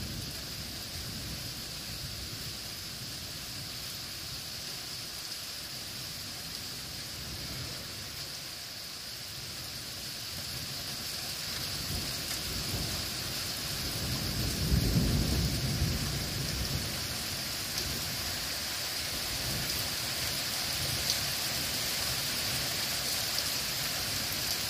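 Steady rain hissing through a thunderstorm, with thunder rumbling in rolls that build to the loudest about fifteen seconds in and then fade to weaker rumbles.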